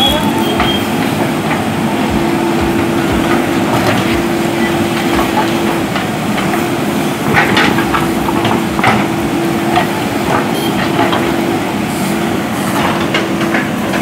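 JCB 3DX backhoe loader working: its diesel engine runs steadily under load with a constant whine, while the backhoe bucket scrapes through earth and broken stone with irregular sharp clanks and knocks.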